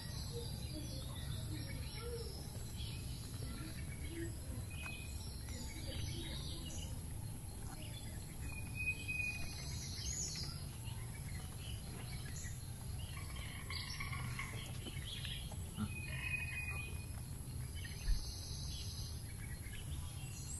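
Birds chirping and calling now and then in short high notes over a steady low background rumble, with one brief louder knock near the end.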